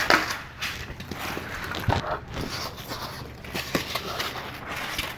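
Packing trash being gathered and cleared away: rustling with scattered knocks and taps.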